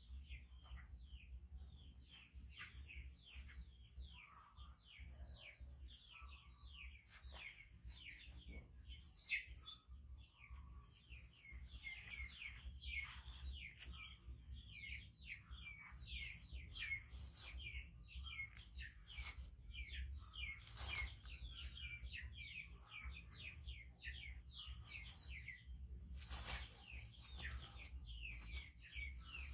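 Small birds chirping continuously: many rapid, short, downward-sliding calls overlapping one another, over a steady low hum.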